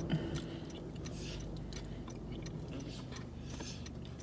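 Mouth and chewing sounds of someone eating a spoonful of potato salad, with a few faint clicks near the start, over a steady low hum inside the car.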